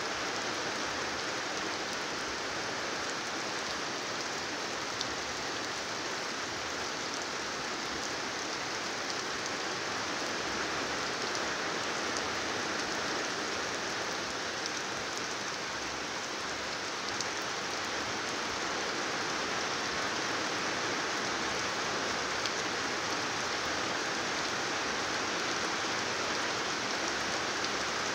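Heavy rain falling steadily, an even hiss with a few sharper ticks of individual drops.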